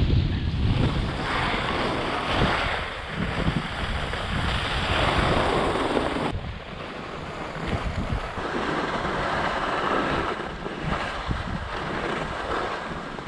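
Wind buffeting the microphone of a camera carried by a moving skier, with the hiss of skis sliding and carving over groomed snow, swelling and fading with each turn.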